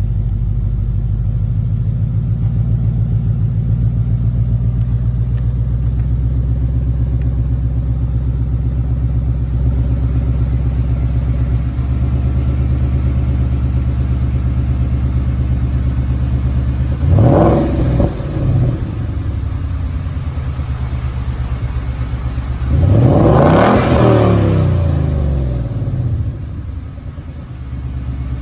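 2016 Ford Mustang GT 5.0 V8 exhaust, fitted with SLP LoudMouth II axle-backs, idling steadily. It is blipped briefly about 17 seconds in, then revved harder and longer about 23 seconds in before dropping back to idle.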